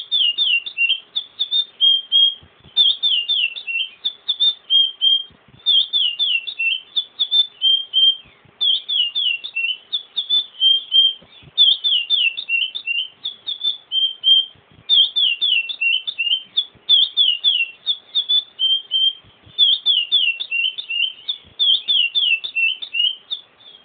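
Chestnut-bellied seed finch (curió) singing its song over and over, about ten times. Each phrase is a quick run of downward-sliding whistled notes ending on a short held note, with a brief gap before the next.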